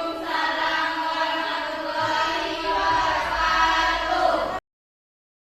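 Voices singing long held notes, like a chant or choir, cut off abruptly about four and a half seconds in.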